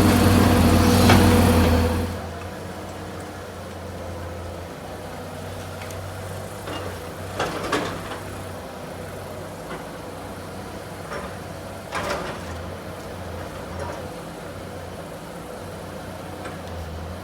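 Tracked excavator's diesel engine running steadily at work, louder for the first two seconds and then a low steady hum, with a few sharp knocks and cracks partway through.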